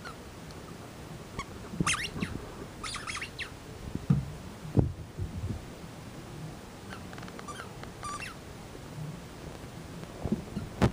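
Australian shepherd puppy giving short, high-pitched whines and squeaks in several brief bouts, with two dull thumps about midway.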